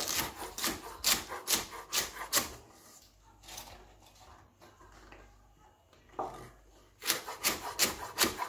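Chef's knife chopping green pea pods on a wooden cutting board: quick knocks about four a second, a pause of several seconds in the middle, then a second run of chopping near the end.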